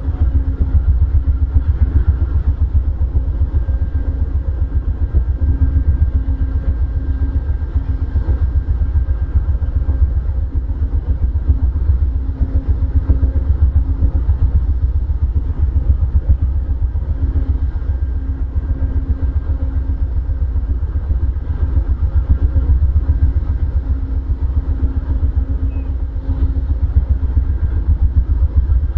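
Steady low diesel rumble with a constant hum from a stopped Amtrak passenger train, its engine idling.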